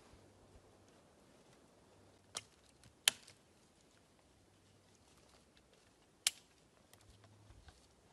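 Three sharp wooden cracks, about two, three and six seconds in, with a few faint ticks between them, as a thin branch is worked with a small blade.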